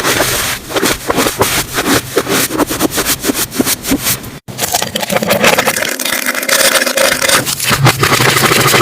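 Slime being squished and stretched: a dense run of sticky crackles and pops, broken by a brief gap about four and a half seconds in.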